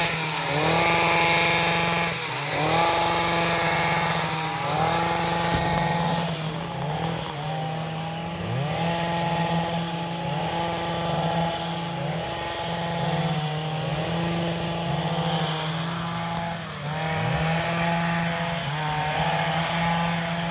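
Small petrol engines of motorised tea-plucking machines running as they shear the tops of tea bushes. They rev up and ease off every couple of seconds, and more than one machine is running at once at different pitches.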